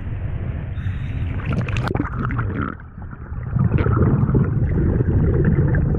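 Scuba diver breathing through a regulator underwater: exhaled bubbles gurgling and rumbling, louder in the second half, with a few knocks a little before two seconds in.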